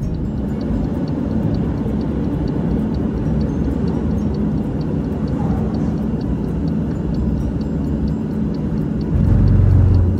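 Steady engine and road rumble heard inside the cabin of a moving Toyota car, swelling into a louder low drone for about a second near the end.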